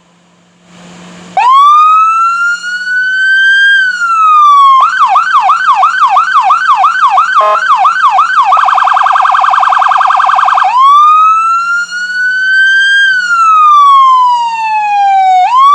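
Police interceptor siren. It starts about a second in with a slow rising and falling wail, switches to a yelp of about two quick sweeps a second, then to a very fast piercing warble, and returns to the slow wail. A short blip cuts in partway through the yelp.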